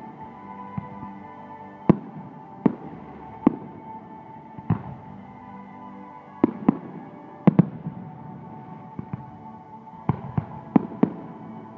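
Fireworks shells bursting aerially: about a dozen sharp bangs at irregular intervals, some in quick pairs, over sustained background music.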